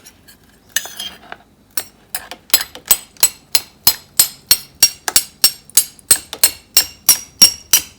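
Two metal spoons clinked together repeatedly in a bucket of water, starting a little under two seconds in and settling into a steady three to four clinks a second, each with a short metallic ring.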